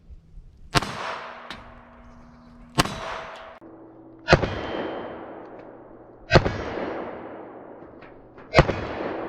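Glock 44 .22 LR pistol fired five times at a slow, even pace, about two seconds apart. Each sharp shot is followed by a long fading ring.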